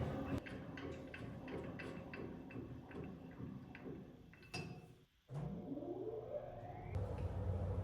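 A run of light clicks and taps, then about five seconds in an electric saw motor spinning up with a rising whine.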